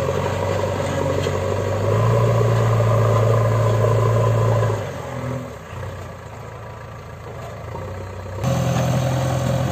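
Backhoe loader's diesel engine running while the front bucket pushes and levels soil. It grows louder about two seconds in, drops back around the middle, and jumps up again suddenly near the end.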